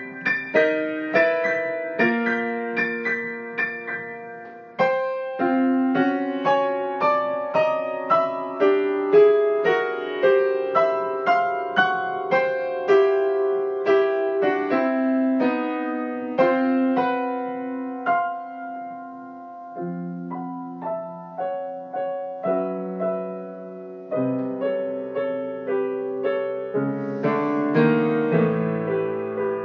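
Solo piano improvising in chords: open fifths with the bass note doubled in the left hand, under harmonic thirds and fourths in the right hand, the chords shifting by semitones and tritones. The chords are struck one or two a second, soften for a few seconds past the middle, and a deeper bass comes in near the end.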